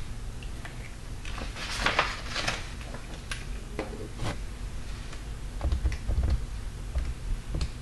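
A sheet of paper being shifted across a desk: a brief rustle and slide about two seconds in, then scattered light clicks and a few soft knocks of handling.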